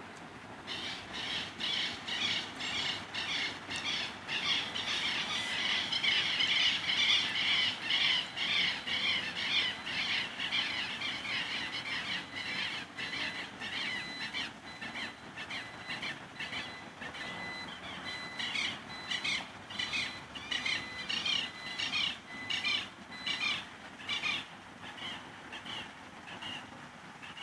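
Fire engine's electronic siren yelping in fast repeating up-and-down sweeps, growing louder to a peak a few seconds in and then slowly fading as the emergency vehicle responds to the call.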